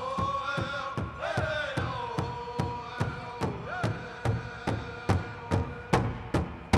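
Pow wow drum group singing a southern-style song, with the big drum struck in a steady beat about two and a half times a second and high voices sliding down in pitch. The drum strikes grow louder near the end.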